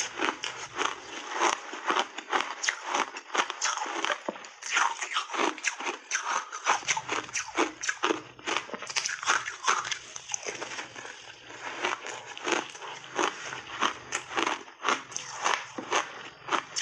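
Big bites into a block of ice coated in heavy milk, and the ice being chewed and crunched up, heard close up. Dense, irregular sharp crunches follow each other several times a second throughout.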